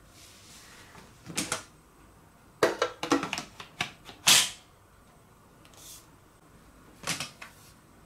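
Hard plastic clicks and knocks from a Makita cyclone attachment's aluminium-taped dust case being handled and snapped onto a Makita cordless stick vacuum, with the motor off. A couple of clicks come about a second and a half in, a quick run of clicks around three seconds, the loudest knock just past four seconds, and another short cluster near the end.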